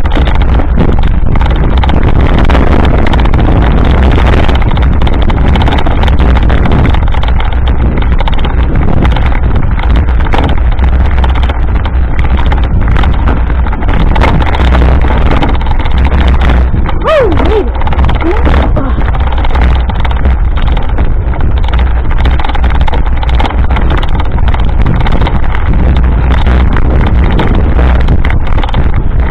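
Mountain bike rolling fast over a rough dirt trail, heard through the action camera's microphone: a loud constant rush of wind on the microphone with a running clatter and rattle from the bumps. A brief squeal that rises and falls comes a little past the middle.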